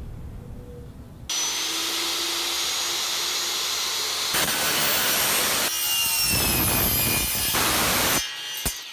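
A stainless steel drink tumbler being sawn open: a loud, steady metal-cutting noise with thin, high ringing tones. It starts suddenly about a second in, changes abruptly a few times and breaks off near the end.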